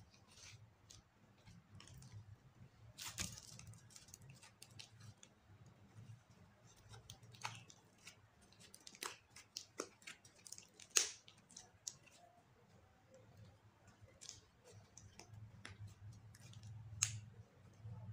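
Slime with glitter and makeup mixed in being kneaded and stretched by hand, giving irregular sticky pops and clicks, with a sharper snap about eleven seconds in and another near the end.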